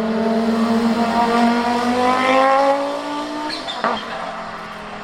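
Audi 90 Quattro IMSA GTO race car's turbocharged 2.2-litre five-cylinder engine accelerating, its note rising for nearly three seconds. Then the throttle lifts and a short, sharp turbo chirp sounds just under four seconds in, before the engine settles to a lower, steady note.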